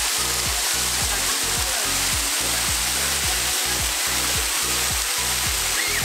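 Loud, steady rush of water from a small waterfall and creek, heard over background music with a steady bass beat.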